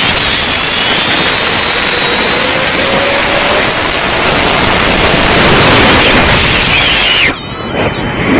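Ducted-propeller drone's motors and propellers heard from its own onboard camera: a loud rushing noise with a high whine that climbs in pitch over several seconds and then falls away. About seven seconds in the rushing drops sharply while the drone rolls over, then picks up again at the end.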